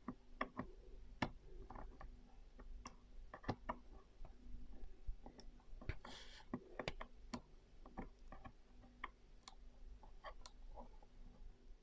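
Faint, irregular clicks and ticks of a fingernail picking and scratching at a plastic laptop-style touchpad, trying to lift the edge of a protective film, with a short scratchy rustle about six seconds in.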